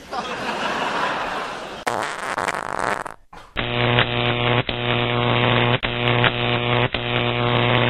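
A long fart sound effect: a noisy, breathy stretch for about three seconds, then after a short break a steady low buzz that carries on, broken by several brief catches.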